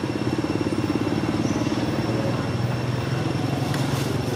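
A motorbike engine running steadily at low revs, with a fast, even pulsing hum.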